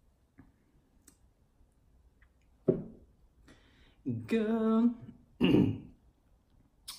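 A man's throat noises, coughing and clearing his throat: a sharp cough about two and a half seconds in, then a drawn-out wavering voiced sound, then one more gruff cough.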